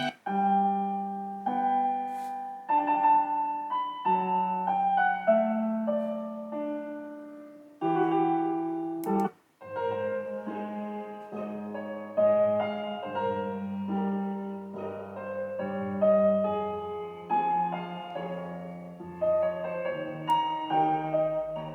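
Piano music played back through a small sound-effect player board. It breaks off abruptly twice, just after the start and about nine seconds in, each time starting again within a fraction of a second.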